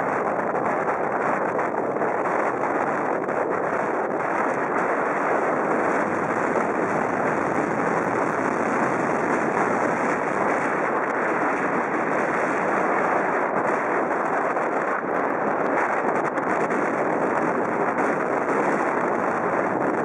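Strong wind blowing over the microphone: a steady rushing noise without let-up.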